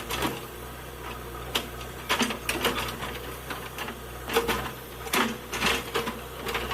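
JCB 3DX backhoe loader's diesel engine running steadily, with irregular metallic clanks and knocks from the working machine over it.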